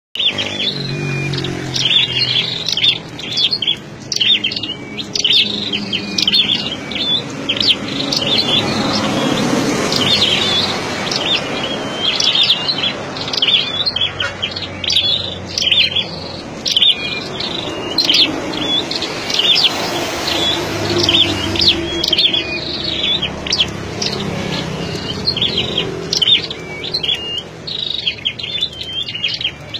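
Caged scarlet-backed flowerpeckers calling with rapid, short, high chirps, over and over.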